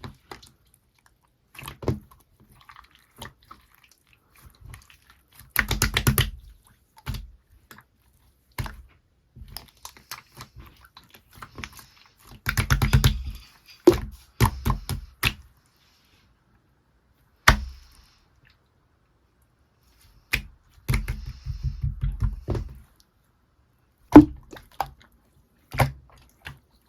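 Clear slime being squeezed and pressed by hand, giving scattered clicks and several quick runs of rapid popping clicks as air pockets in it burst.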